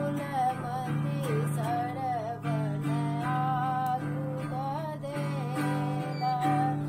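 A woman singing a Maithili folk song, her melody gliding and ornamented, over a recorded instrumental backing of steady repeating chords.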